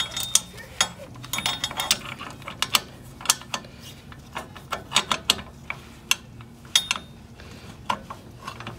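Drum brake adjuster and shoe hardware being handled and fitted by hand: irregular, sharp metallic clicks and clinks of metal parts knocking together.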